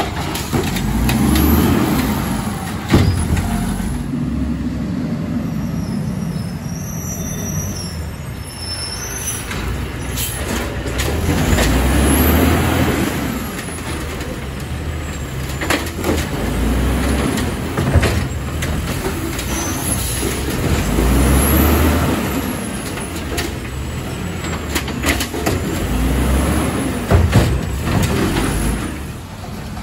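Automated side-loader garbage truck at work: its diesel engine revs up again and again as the hydraulic arm lifts and empties carts, with a few sharp knocks from the carts and arm.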